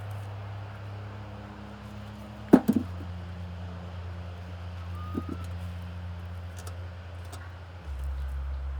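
A low, steady engine hum that steps lower in pitch twice, getting louder near the end. A sharp knock sounds about two and a half seconds in and a fainter one about five seconds in.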